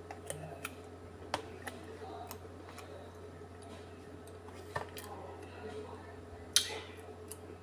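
Metal spoon clicking and scraping against a plastic ice cream tub as ice cream is scooped and eaten, a handful of scattered clicks with the loudest near the end.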